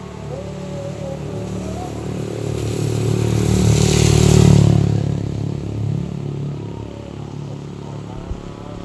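A motor vehicle passing by: engine hum and road hiss build up, are loudest about halfway through, then fade away.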